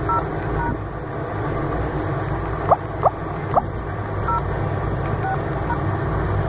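Short two-tone keypad beeps from a G'Five Fire feature phone as the IMEI code *#06# is keyed in, a few near the start and more a little past the middle, over a steady low rumble. Three brief chirps come around the middle and are the loudest sounds.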